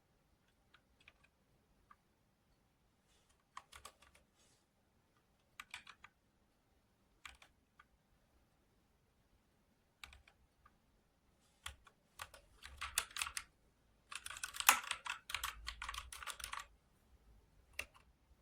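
Typing on a TMKB T61SE mechanical keyboard with linear red switches. At first there are scattered keystrokes and short runs a few seconds apart, then two fast bursts of typing in the second half, the later one the loudest.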